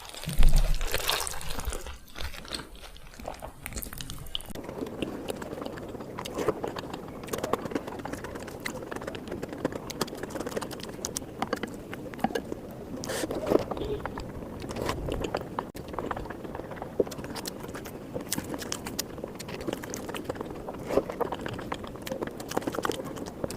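Close-miked chewing and biting while eating spicy egg curry, with a steady stream of small mouth clicks. There is a loud low bump about half a second in.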